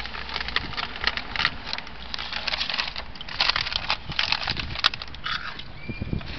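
Crinkling of a plastic snack bag and crunching of chips: an irregular run of sharp crackles, thickest around the middle.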